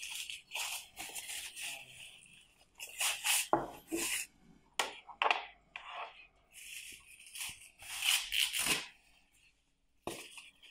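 Bubble-wrap packaging rustling and crinkling in irregular bursts as it is pulled off a pair of plastic bike fenders by hand.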